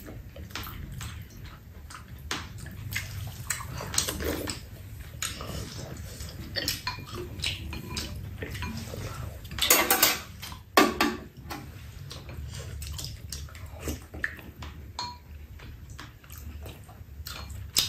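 Spoons and chopsticks clicking and scraping against ceramic soup bowls, with slurping and chewing as soup is eaten. Two louder noises come about ten and eleven seconds in.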